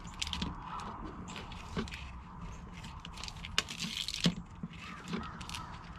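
Hands working black corrugated plastic wire loom and wiring: scattered plastic crinkling and rustling with irregular small clicks, the sharpest clicks a little past halfway.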